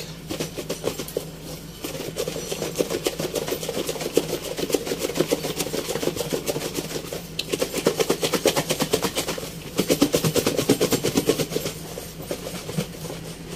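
Covered plastic food tub being shaken hard by hand, with raw chicken skin pieces and dry breading mix thumping and rattling inside in a fast, steady rhythm. There are a few short pauses between bouts, the loudest bout about ten seconds in.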